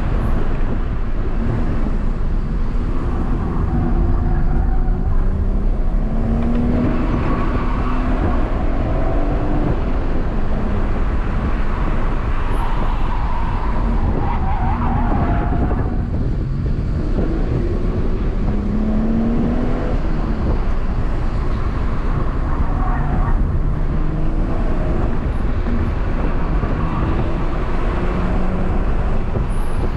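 BMW M140i's turbocharged 3.0-litre straight-six heard from inside the cabin, its pitch climbing and dropping again and again as the car accelerates out of and slows into a run of bends, over a constant rumble of road and tyre noise.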